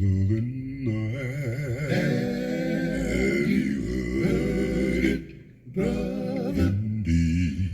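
A song played through a car's upgraded audio system with Blam component speakers and a slim subwoofer: a solo voice sings with heavy vibrato over a deep bass line, with a short break about five seconds in.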